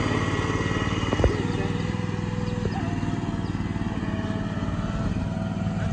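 Engine of a WeedOo amphibious aquatic weed harvester running steadily as the craft pushes through the pond water. There is a single sharp clunk about a second in.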